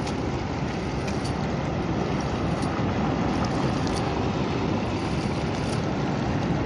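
Steady rushing wind noise on the microphone, heaviest in the low end, with a few faint ticks.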